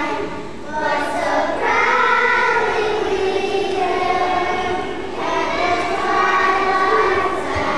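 A children's choir of young girls singing together in long held notes. The phrases break off briefly about half a second in and again about five seconds in.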